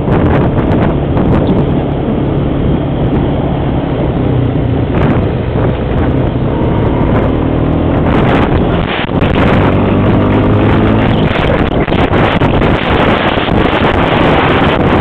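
Honda 350 Rancher ATV's single-cylinder four-stroke engine running under way, its note climbing, briefly dipping about nine seconds in, then picking up again, with heavy wind buffeting on a helmet-mounted microphone.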